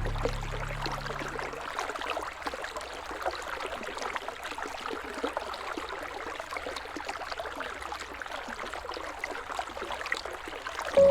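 River water flowing steadily, a rushing haze full of small splashes and trickles. Soft music fades out over the first two seconds and comes back just before the end.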